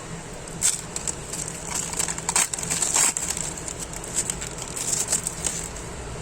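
Foil trading-card packet wrapper being crinkled and torn open, irregular crackles and rustles that are densest about two to three seconds in.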